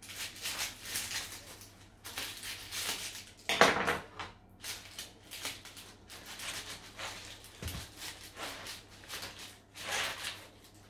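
A knife and a plastic cake server cutting through baked puff-pastry strudel on a metal baking tray: a run of crackling crunches and scrapes, loudest about three and a half seconds in.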